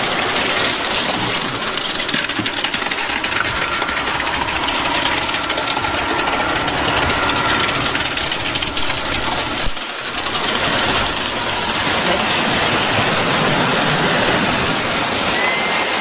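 Boom concrete pump truck's diesel engine running steadily under load while it pumps concrete through the hose, with a brief dip about ten seconds in.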